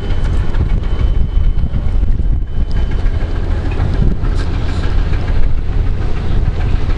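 Wind buffeting the microphone, a loud low rumble that flickers rapidly in strength, over the open-water noise of a harbour.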